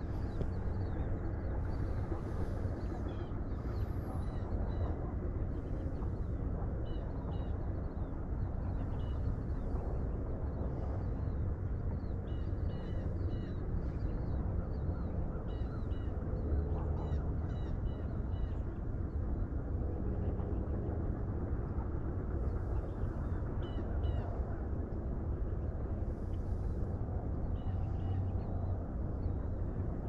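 Outdoor ambience: a steady low rumble with small birds chirping here and there at high pitch.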